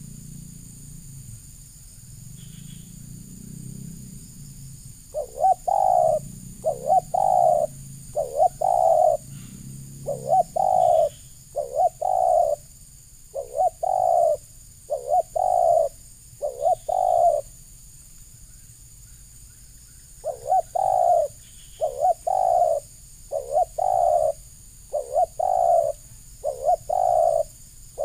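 Spotted dove cooing: runs of short, repeated coo notes at a steady rhythm, falling silent for a few seconds about two-thirds of the way through, then starting again.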